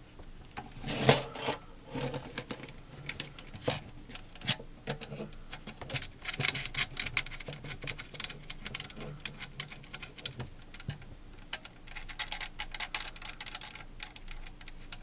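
Hard plastic parts clicking, scraping and rattling as a 3D-printed plastic clamp piece is worked by hand onto a ring light's mount, with sharper knocks about one and four seconds in.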